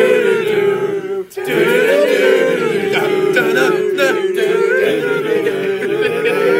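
Several voices singing a cappella over a held low note, with a short break about a second in.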